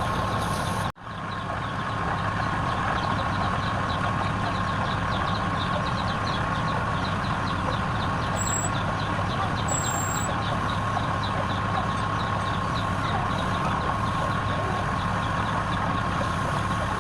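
Wood lathe running with a steady hum, with a fast, even ticking over it. The sound cuts out briefly about a second in.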